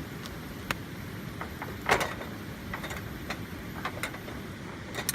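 Scattered light clicks and knocks over a steady low rumble, with one louder knock about two seconds in.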